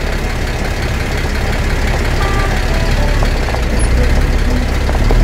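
Jeep engine running steadily with a rough, rumbling noise that slowly grows louder.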